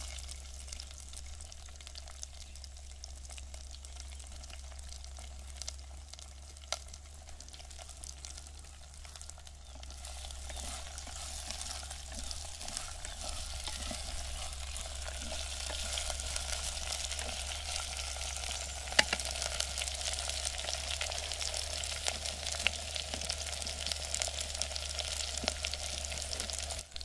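Okra pieces frying in hot oil in a clay pot, a steady sizzle that grows louder about ten seconds in, with occasional knocks of a wooden stirrer against the pot.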